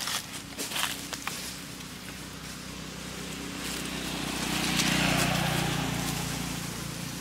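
Dry leaves crackling under small footsteps in the first second or so, then a motor vehicle passing by, its engine sound swelling to a peak about five seconds in and fading away.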